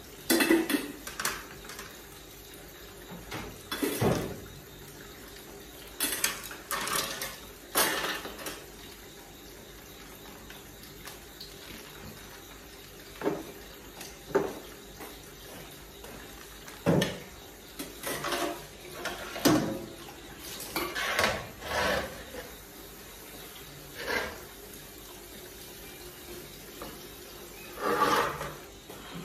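Dishes and pots clinking and clattering in a stainless steel sink as they are washed by hand, in bursts every few seconds, over water running from the tap.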